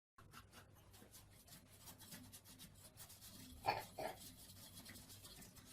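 Faint bristle scratching of a paint brush being swept over a computer's motherboard to brush off dust, with two louder strokes in quick succession a little past the middle.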